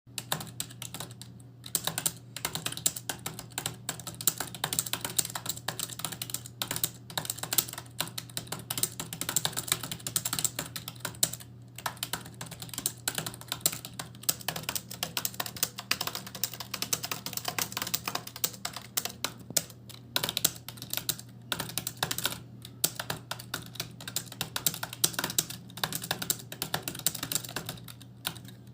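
Fast, continuous typing on a computer keyboard: rapid key clicks with a few brief pauses, over a low steady hum.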